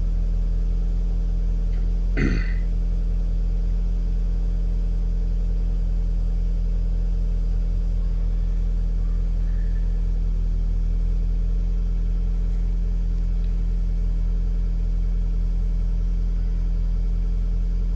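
2009 Toyota Camry engine idling steadily on fresh oil, sounding nice. There is one brief knock about two seconds in.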